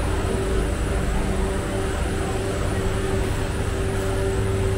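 Busy night-market background noise: a steady low mechanical hum with a faint held tone over it, and indistinct voices underneath.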